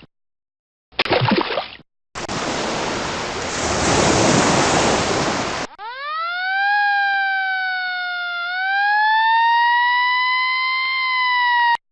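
A run of separate sound effects. A brief effect about a second in, then a rushing noise for about three and a half seconds, then a siren wailing: its pitch climbs, sags once, climbs again and cuts off suddenly near the end.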